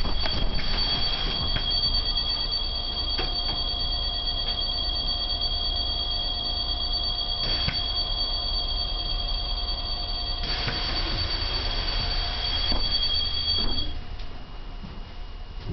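Bus door warning signal: a steady, high-pitched electronic two-tone sounding while the doors of a Renault City Bus stand open, over a low diesel idle. About two-thirds through, a rush of compressed-air hiss comes in, and near the end the tone cuts off.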